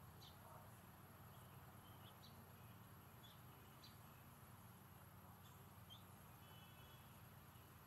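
Quiet garden ambience: faint, short bird chirps about once a second, with a brief trill near the end, over a steady low hum.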